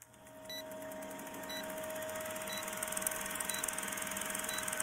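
Vintage film-countdown sound effect: a steady projector whirr with hum and crackle, and a short high beep once each second as the numbers count down. It fades up over the first half second.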